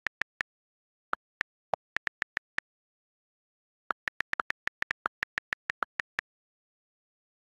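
iPad on-screen keyboard click sounds as letters are typed: short, sharp ticks in an uneven run, a pause of over a second in the middle, then a quicker burst of about a dozen and a half taps.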